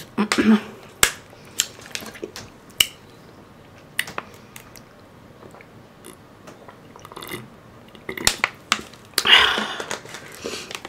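Close-miked eating sounds: chewing with scattered sharp mouth clicks and smacks. About nine seconds in there is a longer, louder noisy burst.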